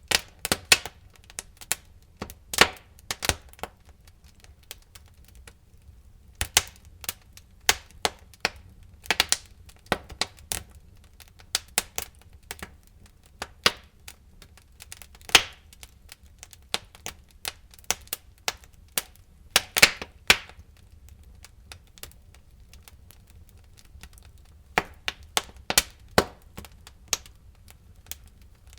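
Wood fire burning in a fireplace, crackling with irregular sharp pops and snaps, some in quick clusters, over a low steady rumble.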